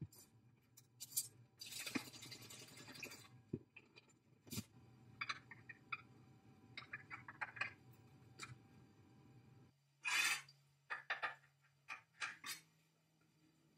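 Faint scattered clicks, scraping and rustling as a hand works a rag over rusty metal parts soaking in a bucket of rust remover.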